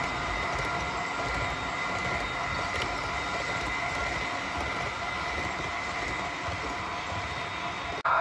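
Model train cars rolling past on layout track: a steady whir of wheels on the rails with a thin steady whine.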